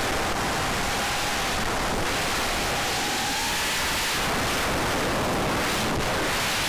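FPV racing quadcopter in fast, low flight, heard from its onboard camera: a steady rush of wind and propeller wash with a faint motor whine that rises a little in pitch about halfway through.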